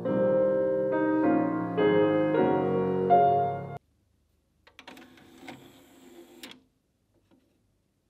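Piano music plays and stops abruptly about four seconds in. About a second later a Pioneer PD-S602 CD player's disc tray motors open, a whir with clicks lasting about two seconds.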